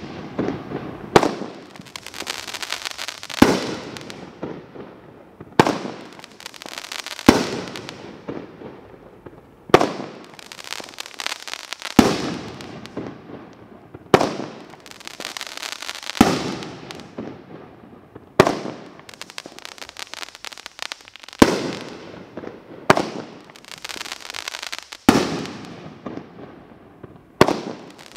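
Asian Sensation consumer firework cake firing shot after shot: a sharp bang about every two seconds, each followed by a fading tail of noise as the burst dies away.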